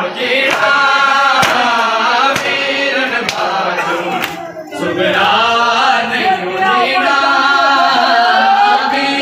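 Men's voices chanting a Shia noha lament in unison, with sharp chest-beating slaps of matam about once a second through the first half.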